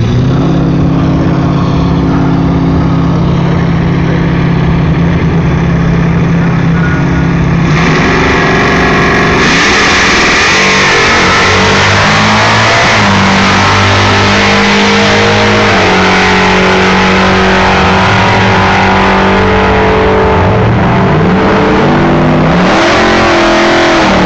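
Supercharged V8 of a Ford Shelby GT500 drag car running steadily, then becoming much louder about eight to ten seconds in. Through the second half it is revved hard, its pitch climbing and dropping back several times.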